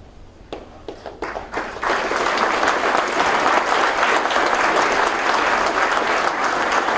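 Audience applause in a large hall: a few scattered claps at first, swelling into steady applause about two seconds in.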